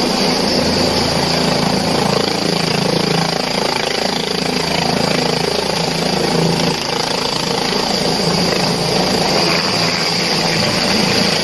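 Helicopter turbine and rotor running steadily and loudly, with a constant high whine over the dense rotor noise.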